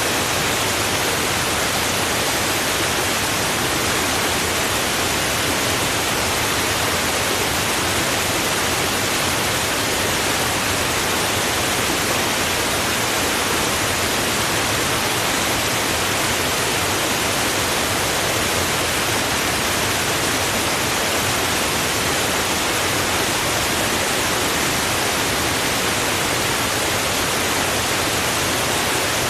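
Running water rushing steadily, an even hiss with no separate splashes or changes.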